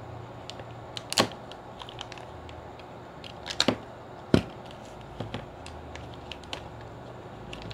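Clear plastic parts bag and bubble wrap being handled: scattered sharp crinkles and clicks at irregular intervals, the loudest about a second in and a little past the middle.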